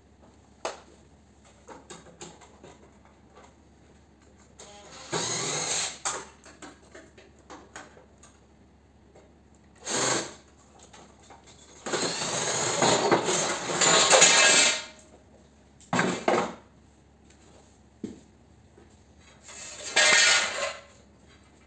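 Cordless drill-driver running in about five short bursts, the longest about three seconds, backing screws out of a fan coil unit's sheet-metal housing. Small clicks of handling come between the bursts.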